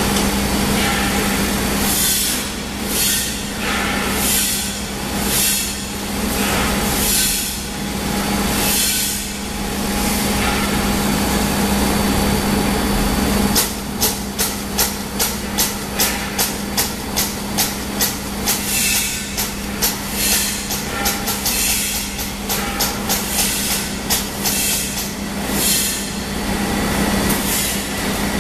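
Toy stuffing machine running with a steady hum while its filling nozzle blows fibre stuffing into a plush toy in hissing air blasts. First come spaced bursts about every second and a half, then, about halfway through, a quick train of short pulses, two or three a second.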